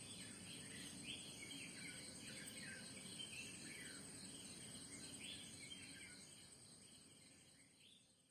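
Morning birds calling with repeated short downward-sweeping notes over a steady high-pitched insect trill. The sound fades out near the end.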